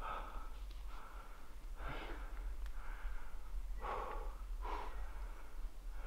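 A man breathing hard close to the microphone: a run of heavy, breathy exhales, roughly one every second or so, with no words. He is out of breath and worked up.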